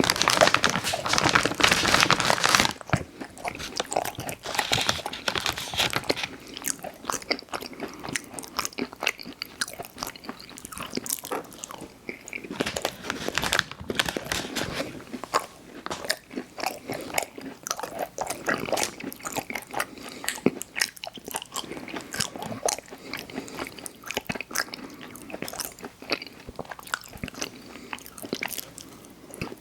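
Close-miked bites and chewing of soft, chewy chocolate cookies with cream, wet and smacking, with many irregular clicks and crackles. It is loudest and densest in the first three seconds.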